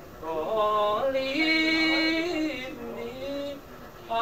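A man singing a traditional song unaccompanied, with a long held note near the middle.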